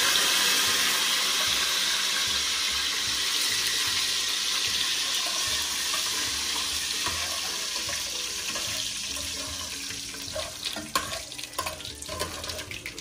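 Curry leaves spluttering in hot oil and ghee with whole red chillies and cumin for a dal tadka: a loud hissing sizzle that starts strong and slowly dies down, with a few ladle clicks against the pan near the end.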